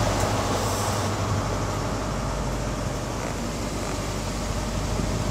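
Diesel engine of a Class 43 HST power car idling: a steady low rumble that eases slightly over the first couple of seconds.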